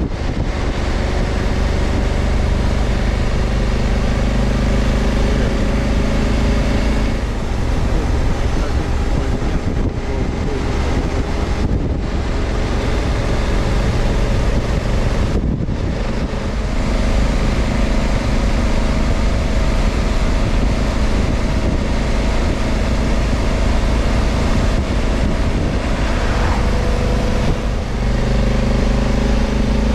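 Honda Africa Twin's 1084 cc parallel-twin engine running steadily at road speed, heard from the rider's position with heavy wind and road noise over it. The noise dips briefly a few times partway through.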